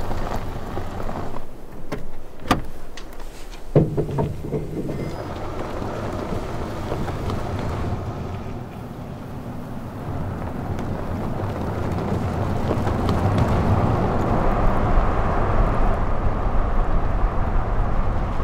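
Rivian R1T electric pickup towing a travel trailer: tyres rolling over dirt and gravel with no engine note, with a few sharp knocks and rattles in the first few seconds. The rolling noise grows louder toward the end as the rig comes close.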